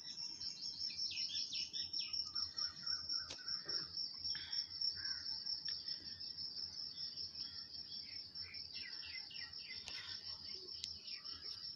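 Small birds chirping repeatedly over a steady, rapidly pulsing high-pitched insect trill.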